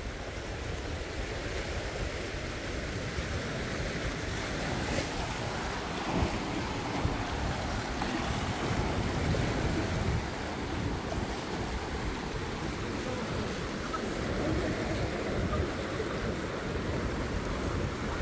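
Steady wash of sea surf and wind, with gusts buffeting the microphone.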